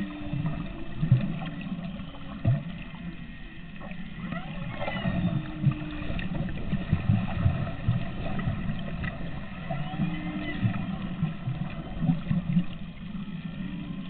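Humpback whale song heard underwater: several long, steady low moans, with shorter rising and falling whoops and squeals higher up, over constant underwater hiss and low knocks.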